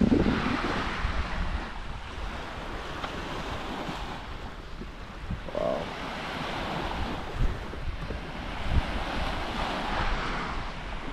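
Small waves washing onto a sandy beach, swelling and fading, with wind gusting on the microphone.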